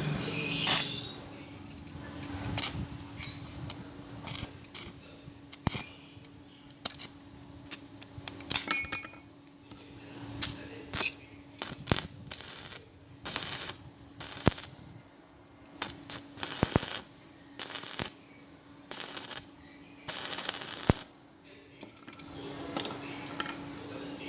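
Metal pieces knocking and clinking, with a string of short sharp noisy bursts, one strike about a third of the way in ringing clearly, over a steady low hum.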